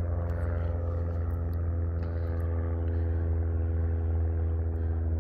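A motor or engine running steadily at an unchanging speed: a low, even hum whose pitch never rises or falls.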